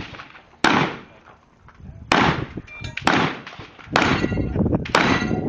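Five gunshots fired in quick succession, roughly a second apart, each with a short ringing tail.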